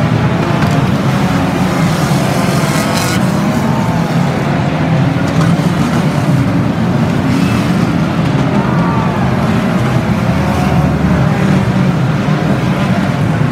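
Engines of a pack of banger racing cars running and revving as they race round the track: a steady, loud din of many engines with pitches that rise and fall.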